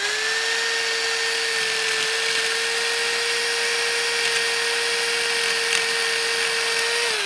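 Corded electric jigsaw running at a steady speed, its blade cutting through 3/4-inch PVC pipe: a steady motor whine over the rasp of the blade. Just before the end the trigger is let go and the whine starts to fall in pitch as the motor spins down.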